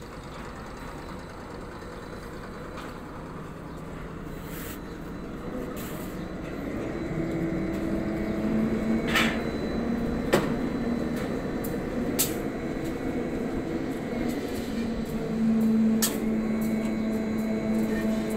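Ship's deck crane running as it lowers a bundle of steel rebar into the cargo hold: a steady machine hum that grows louder and takes on a higher, steadier drone from about seven seconds in, with a few sharp metallic clicks and knocks.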